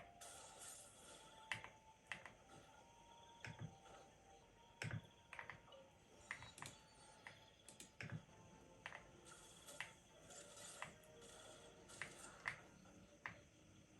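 Faint, irregular clicks, roughly one or two a second, over quiet background music.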